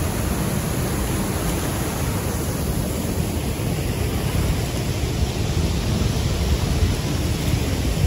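Steady rushing of waterfalls and churning white-water river, heaviest in a low rumble.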